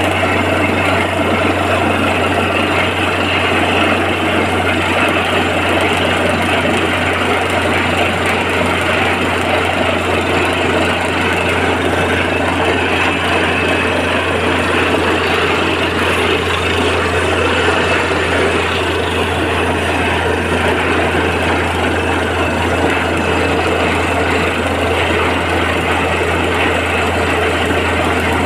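Borewell drilling rig running steadily, with a constant low engine hum under a dense, even mechanical din that does not let up.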